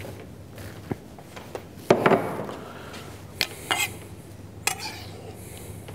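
Kitchen knife chopping pickled green chili peppers on a wooden cutting board: a handful of irregular knocks of the blade on the board, the loudest about two seconds in.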